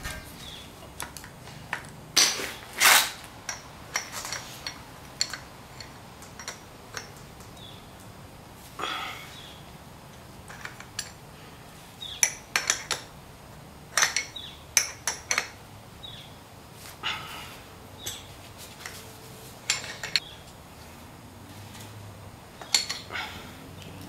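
Irregular metal clicks and clanks of a chain breaker tool being fitted and worked against a stuck transmission shift linkage pin, with a few louder knocks that ring briefly and clusters of quick clicks.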